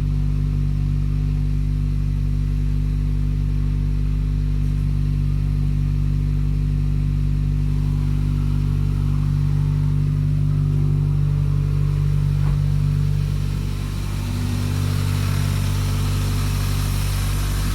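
Turbocharged car engine idling steadily after a restart, running while it is checked for misfires following refitted PCV, coolant and turbo hoses. The level dips slightly about three-quarters of the way through.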